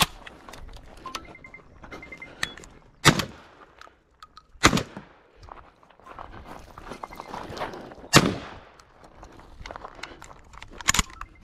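Three gunshots fired singly during a competition stage, a second and a half to three and a half seconds apart, each a sharp crack with a short echo, with fainter sharp clicks between them.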